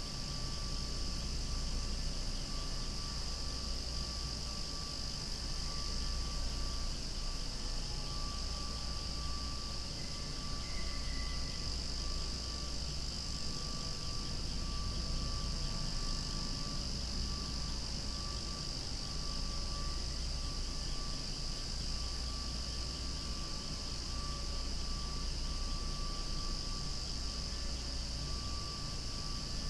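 Cicadas singing in a dense chorus: a loud, steady, unbroken high buzz. A low rumble sits underneath.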